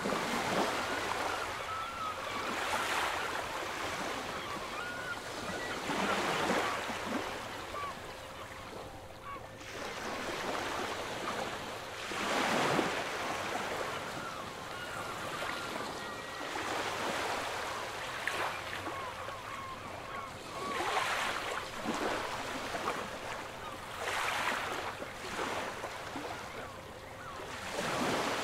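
Sea waves surging and washing in, one loud swell every few seconds.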